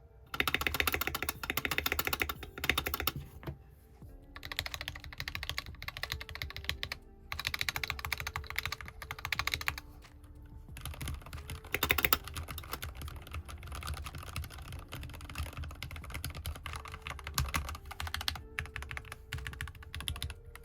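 Typing on a Keychron K6 Pro aluminum mechanical keyboard with Gateron Milky Yellow Pro linear switches and PBT keycaps: fast runs of key clacks broken by brief pauses. Quiet background music with held notes plays underneath.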